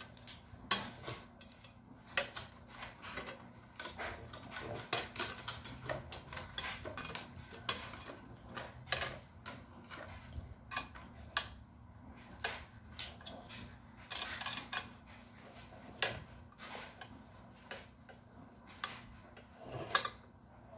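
Irregular metallic clicks and clinks of an Allen key being turned in a bolt on a metal tube frame while a wrench holds the nut, as the bolt is tightened.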